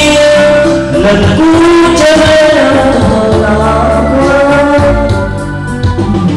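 Background music: a song with a voice holding long sung notes over a steady bass line.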